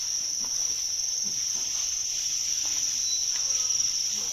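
Chorus of many farmed crickets chirping together in their breeding box. It is a steady, high-pitched trill that does not let up.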